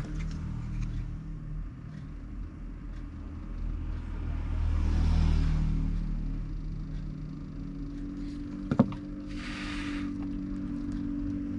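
Small electric heat gun running, its fan humming steadily while it shrinks heat-shrink tubing over soldered wire joints, with two passing hisses of air and a single sharp click about nine seconds in.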